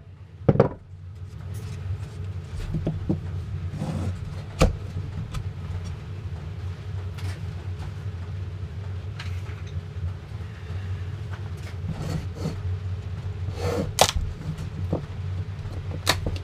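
A few sharp knocks of nails being hammered into a wooden beehive frame, spread out in small groups, over a steady low machine hum.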